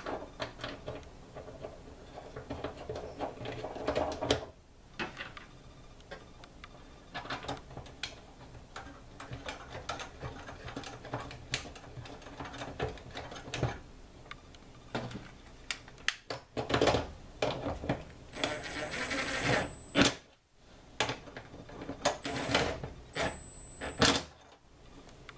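Irregular clicks, taps and light knocks of plastic tailgate-handle and lock parts being handled and pressed together, with a short scraping, rustling stretch near the end.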